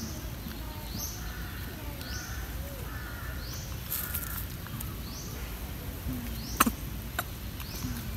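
Outdoor ambience with a bird's short, high, upward-sweeping call repeating about once a second. Two sharp clicks come a little over half a second apart near the end, the first of them the loudest sound.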